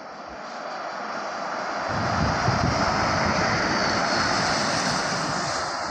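A bus driving past: engine and tyre noise swells, a heavy low rumble joins about two seconds in, and the sound then slowly fades.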